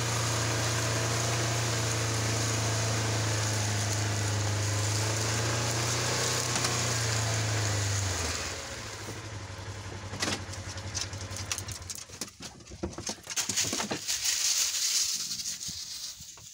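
Buggy engine running steadily under way, its hum dropping away about eight seconds in. It is followed by irregular crackling and rustling in dry leaves.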